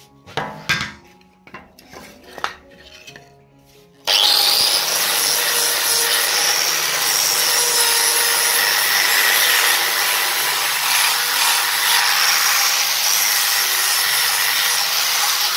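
A few light knocks over background music, then about four seconds in an angle grinder with a flap disc starts abruptly and runs steadily, sanding a scrap-wood block: a constant whine over a rough grinding hiss.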